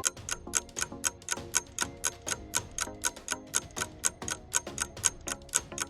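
Countdown-timer clock sound effect ticking rapidly and evenly over soft background music, marking the time left to answer.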